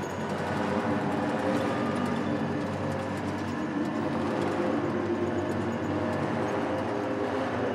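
Ambient electronic score: a dense, steady drone of low hum tones under a rushing haze, with no beat.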